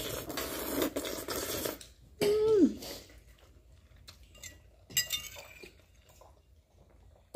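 Cutlery clinking and scraping against plates at a meal. There is a noisy scrape or rustle for about the first two seconds, a short falling vocal sound a little after, and light clinks about five seconds in.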